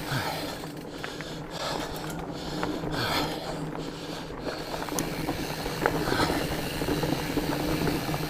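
Fatback Skookum fat bike rolling over rocky, rooty singletrack: tyre noise with the chain and frame rattling, and scattered sharp ticks and knocks as it goes over roots and rocks.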